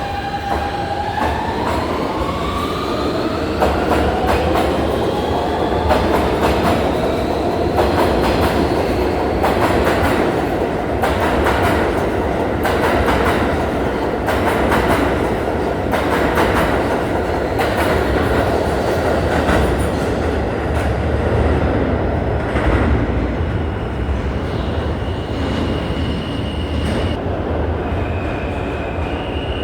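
New York City subway work train of R42 cars running past, a whine rising in pitch over the first few seconds as it picks up speed. This is followed by a steady rumble with a rapid clatter of wheels over rail joints, and a thin, high wheel squeal near the end.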